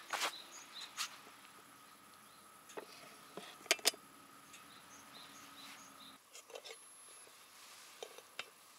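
Quiet outdoor ambience with faint, regularly repeated high chirping, broken by a series of short sharp clicks and light clinks of cookware and utensils being handled, the loudest a quick pair about four seconds in.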